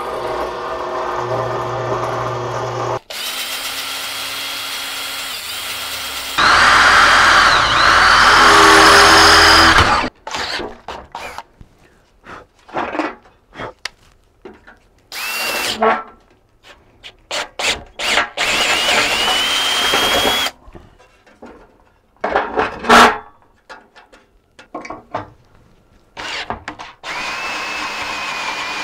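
Power drilling in steel: a drill press motor runs and its bit cuts loudly through a steel bar for several seconds. Then a cordless drill runs in many short bursts, starting and stopping, as holes are drilled and bolts driven into the router table.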